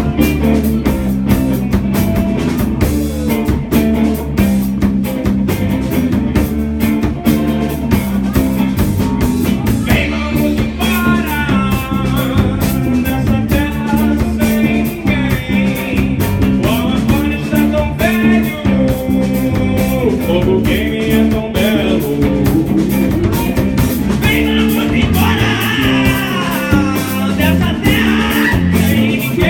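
Rock band playing: drum kit, bass guitar and electric guitar, with a bending lead melody line entering about ten seconds in and growing stronger near the end.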